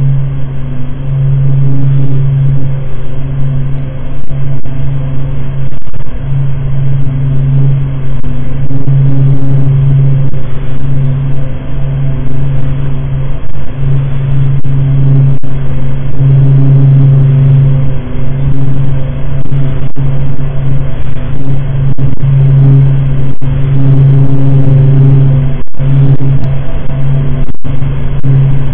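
Space recording of Neptune's magnetic field and radio waves turned into sound: a loud, steady low droning hum with fainter higher overtones above it, dropping out briefly a couple of times near the end.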